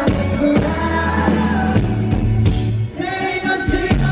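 Live rock band playing, with a male lead singer singing into a microphone over the full band.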